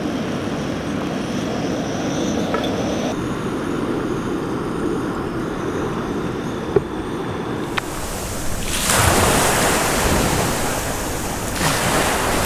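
Small waves washing onto a shallow sandy beach, with wind on the microphone, coming in loud about two-thirds of the way through; before that a quieter steady hiss with a couple of faint clicks.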